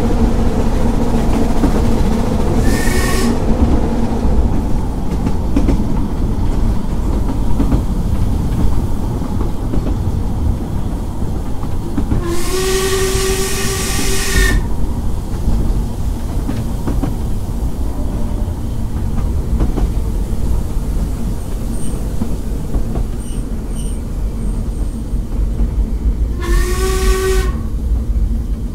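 Double Fairlie steam locomotive Merddin Emrys on the narrow-gauge line, heard from the train: a steady loud running rumble of the moving train, with the engine's whistle sounded three times: a short toot about three seconds in, a longer blast of about two seconds midway, and another short toot near the end.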